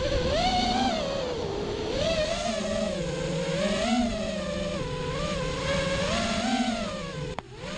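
FPV racing quadcopter's electric motors and propellers whirring in flight, the pitch rising and falling as the throttle changes. The sound briefly dips with a click near the end.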